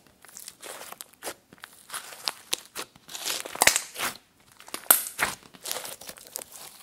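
Glossy slime squeezed, folded and pressed between bare hands, giving an irregular run of sticky clicks and crackling pops that are thickest and loudest around the middle.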